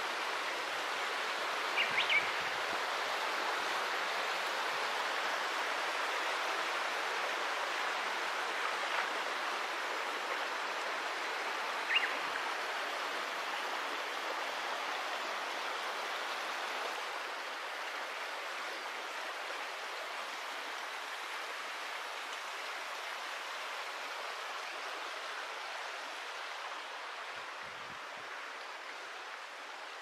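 Steady rushing of a rocky mountain stream, easing a little in the second half, with three brief high chirps in the first half.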